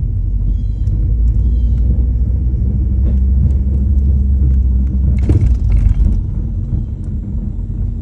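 Car running with a steady low rumble, the front-end noise being recorded. A few light clicks and knocks sound over it, with a louder rattling burst about five seconds in.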